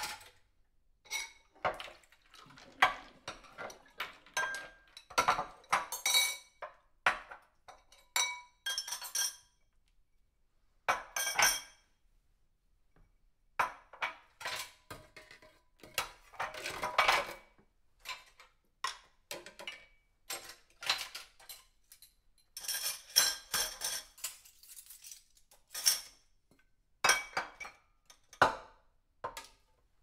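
Dishes and cutlery being handled while washing up: irregular clinks and clatters of crockery and silverware knocking together, in bunches with short pauses between.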